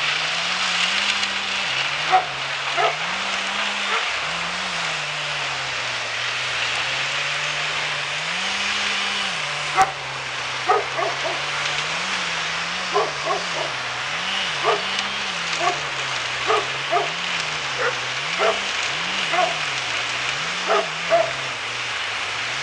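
An engine running steadily, its pitch rising and falling again and again as it works, with a dog barking over it in short repeated barks from about halfway through.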